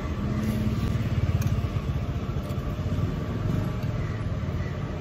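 A motor vehicle engine running, a low pulsing rumble that swells about half a second in and eases off after a couple of seconds.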